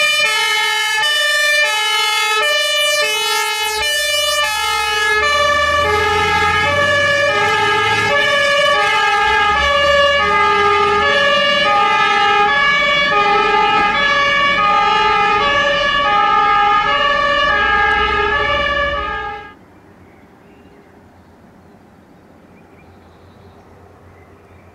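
German fire engine's compressed-air two-tone horn (Martinhorn) sounding its alternating high-low signal, with the truck's engine rumbling underneath from about four seconds in. The horn and engine cut off abruptly about three-quarters of the way through, leaving only faint background noise.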